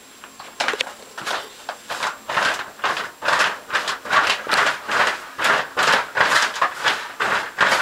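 Plastic shower curtain crinkling and rustling as a cat paws and pounces at it from inside the tub, in quick bursts about three a second that start about half a second in.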